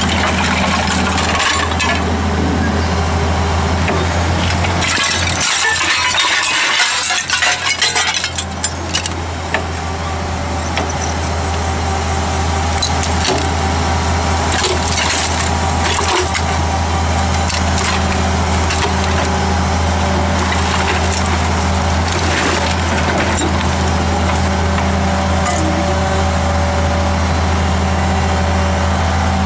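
Hydraulic excavator's diesel engine running steadily while it works a scrap magnet. Loose scrap iron clatters and clanks in a dense burst about five to nine seconds in, with a couple of single metal knocks later.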